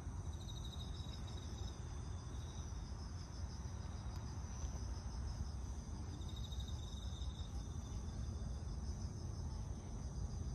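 Insects chirring steadily, with a higher trill joining in briefly about three times, over a low background rumble.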